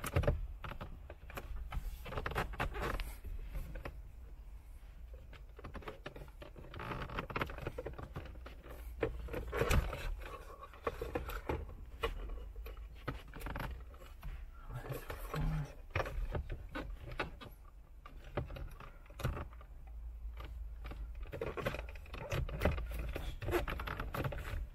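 Plastic dash trim being worked by hand: irregular clicks, knocks and scraping as the Toyota Prado's air-conditioning control panel and its plug are fitted and clipped back into the dash.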